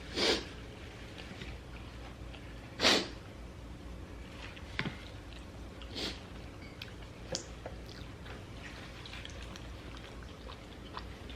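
Eating sounds at a table while pizza is being eaten: four short, sharp, breathy or crunchy bursts, the loudest about three seconds in, with faint scattered clicks of chewing between them.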